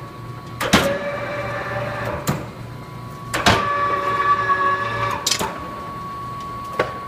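Motor whine on a Stanko hollow-spindle engine lathe, running in two short spells of about one and a half and two seconds, each switched on and off with a click, over a steady high-pitched hum.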